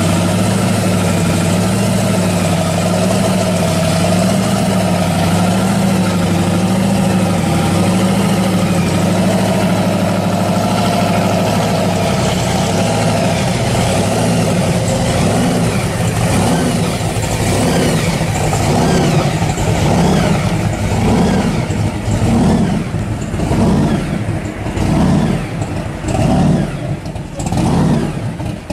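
Supercharged, fuel-injected V8 of a 1957 Chevy pro street car idling with a slightly uneven lope. About halfway through, the throttle starts being blipped, and the revs rise and fall roughly once a second.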